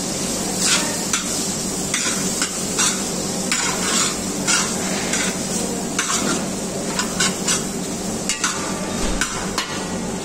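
Steel ladle stirring and scraping through okra and vegetables in a large metal pan, striking the pan irregularly about once or twice a second. Under it runs a steady sizzle of the vegetables frying.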